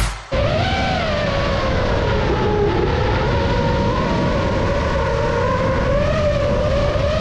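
FPV quadcopter's brushless motors and propellers whining steadily, the pitch wavering up and down as the throttle changes.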